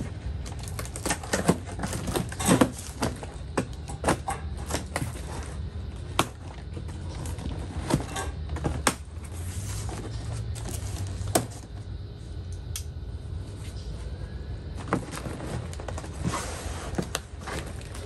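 Large cardboard shipping box being cut open with a knife and its flaps pulled back: an uneven run of sharp clicks, scrapes and cardboard crackles, the loudest about two and a half seconds in and again about eleven seconds in, over a steady low rumble.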